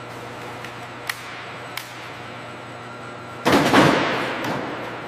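A steady low hum with two sharp clicks, then a loud sudden crash about three and a half seconds in that dies away over about a second and a half.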